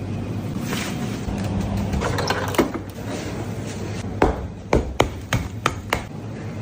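Steady low hum, then a quick run of about seven sharp mechanical clicks and knocks, like a small gadget being handled or worked.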